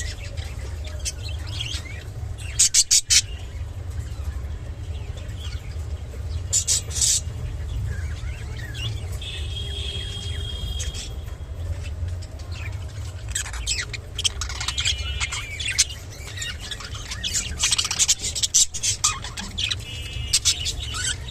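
Budgerigar chirping and chattering in scattered short bursts, with clusters of quick clicky notes, over a steady low hum.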